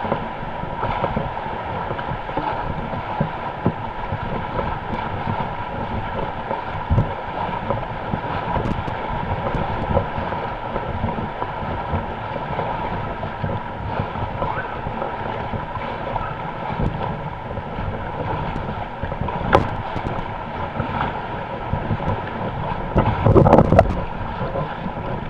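Paddles working the water around an inflatable canoe, with water sloshing and wind buffeting the microphone; a louder splash or knock near the end.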